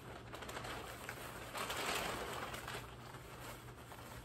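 Plastic packaging rustling and crinkling as hands dig through a cardboard box, loudest about two seconds in.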